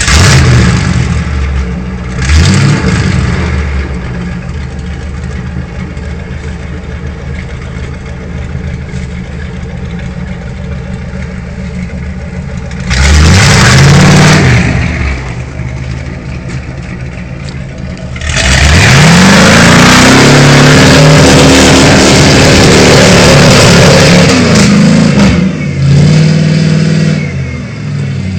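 Mud truck's engine running, revved briefly twice and then held at high revs for about six seconds with a loud rushing noise over it before dropping back, followed by another short rev.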